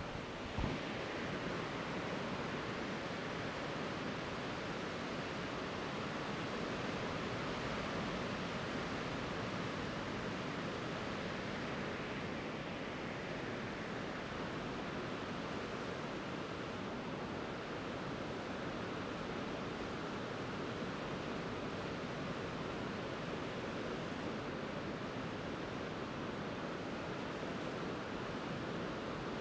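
Steady roar of breaking surf heard from the shore, an even wash of noise with no distinct single waves. A short low thump sounds about half a second in.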